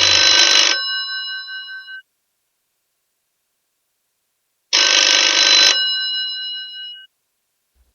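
Old telephone's bell ringing: two rings about five seconds apart, each a second-long clatter of rapid bell strikes whose tones ring on and fade over about a second.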